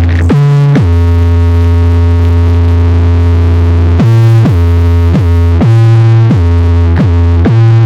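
Electronic dance music played loud through a car sound system: a synthesizer holds a deep bass note, then about four seconds in switches to a repeating run of short notes, each sliding down in pitch.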